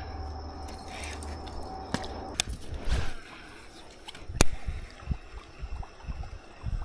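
Small water sounds, drips and light sloshing, with a few sharp clicks and short low knocks; one click about four seconds in is the loudest.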